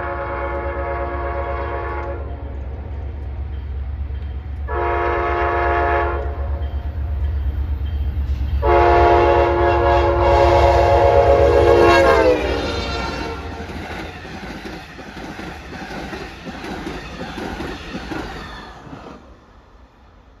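Amtrak passenger train's locomotive horn sounding for a grade crossing: a long blast, a short blast, then a final long blast whose pitch drops as the locomotive passes. A low rumble runs under the horn, and the passenger cars then roll by with wheels clicking over the rails, fading out near the end.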